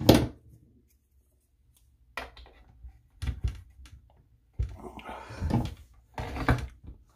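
A sharp knock, then after a couple of seconds a series of short bumps, rustles and clatters as objects are handled and set down.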